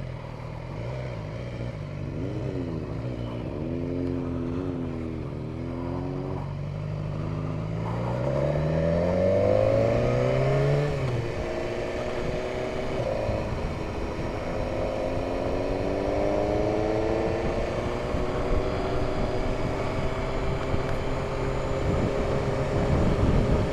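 Motorcycle engine riding along and accelerating, its pitch climbing as it revs and dropping sharply at a gear change about eleven seconds in, then climbing again, over steady wind and road noise.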